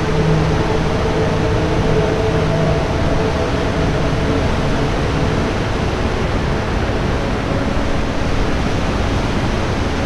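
Whitewater rapids rushing over rocks: a loud, steady wash of water noise.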